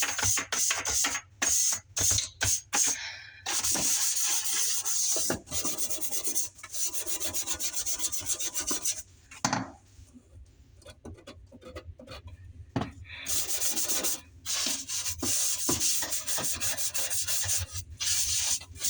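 Bristle bottle brush scrubbing the inside of a dishwasher tub in quick back-and-forth strokes, with a pause of a few seconds about halfway through.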